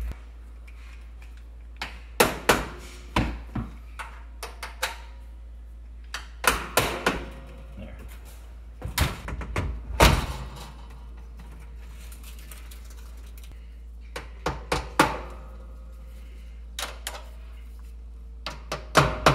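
Scattered metal clunks and clicks as a stainless steel wall oven's door is handled and a screwdriver is worked at its frame, in short clusters of knocks with pauses between, over a steady low hum.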